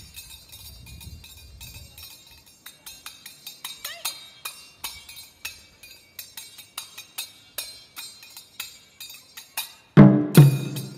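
Small hand-held cymbals clicked together in a quick, quickening rhythm, with a bright metallic ring. About ten seconds in, taiko drums come in suddenly and loudly with heavy strokes.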